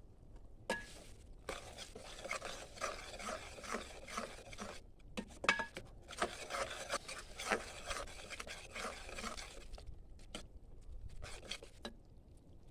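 Repeated scraping and rubbing of a utensil against cookware, with sharp clicks, breaking off briefly about five seconds in and stopping near the ten-second mark.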